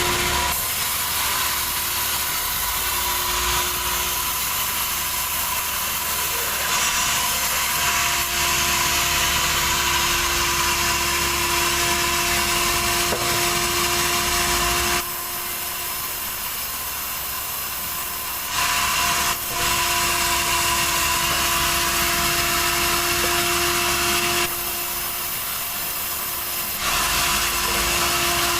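Sawmill saw cutting through a log of terap wood: a loud, steady cutting noise over a constant hum from the machine. The cutting noise drops away twice for two or three seconds, about halfway through and again near the end, then comes back.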